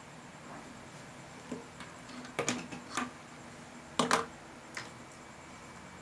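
A handful of sharp clicks and taps from small parts and tools being handled on a workbench, the loudest a quick pair about four seconds in.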